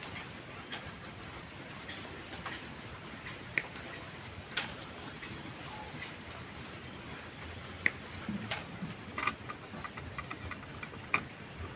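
Outdoor ambience: a few short birds' chirps over a steady background hiss, with scattered light knocks or clicks.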